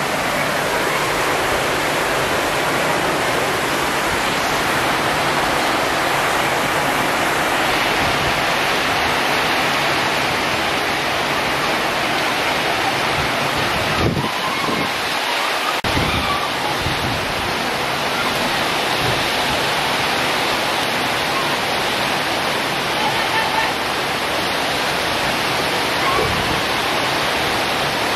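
Heavy rain pouring steadily onto corrugated tin roofs, a dense even rush of water.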